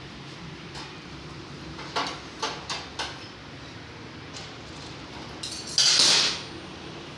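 Metal hand tools clinking against metal parts during motorcycle repair work: a few sharp clinks about two to three seconds in, then a loud, short rushing burst about six seconds in.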